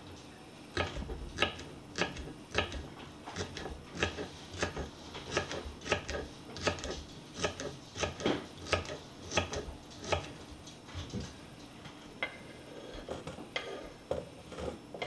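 Kitchen knife chopping celery on a wooden cutting board, a steady run of knocks about one and a half a second that thins out to a few scattered strokes after about ten seconds.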